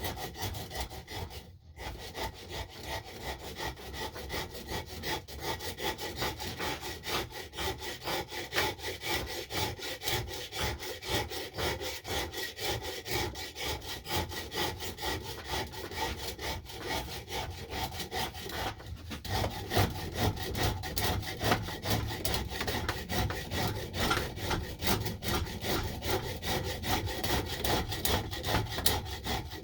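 Rapid back-and-forth strokes of a hand tool, such as a rasp, file or saw, working a wooden axe handle. The strokes run steadily, with brief pauses about two seconds in and again past the middle.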